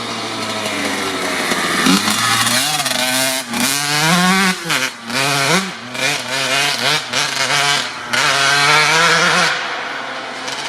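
1997 Kawasaki KX80's 80 cc two-stroke single-cylinder engine revving hard in repeated bursts, its pitch climbing and falling with the throttle, with short cut-outs between bursts. Near the end it settles to a lower, steadier note.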